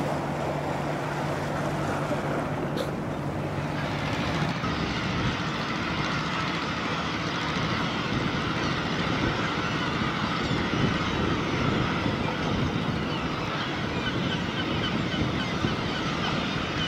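Fishing boat engine running, with wind on the microphone. About four and a half seconds in the sound changes: the steady low hum gives way to a denser, hissier rush.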